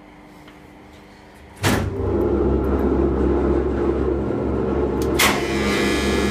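A sharp clunk about a second and a half in, then the 1950s wharf crane's electric drive machinery runs with a loud, steady hum and rumble; another sharp click comes about five seconds in.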